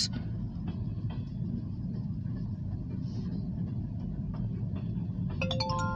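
Freight cars of a long train, grain hoppers and tank cars, rolling past with a steady low rumble and a few faint knocks. Near the end, a chord of steady tones comes in.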